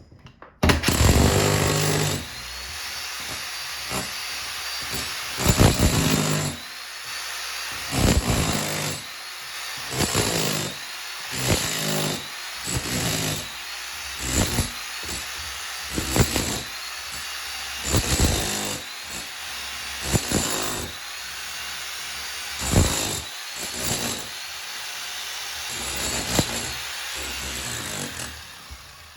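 Power saw cutting out a rotten wooden floor joist. It starts suddenly and runs steadily, surging louder every second or two as the blade bites into the wood.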